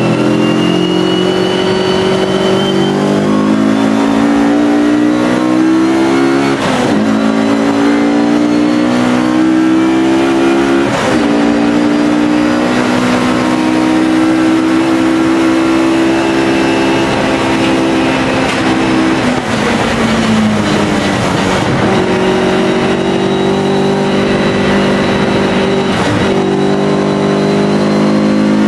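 Alfa Romeo racing car's engine running hard under load, its pitch climbing slowly and breaking at gear changes about 7 and 11 seconds in, easing around 20 seconds in before pulling again.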